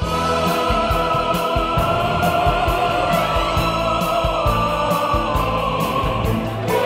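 Background music with a steady beat and long held notes.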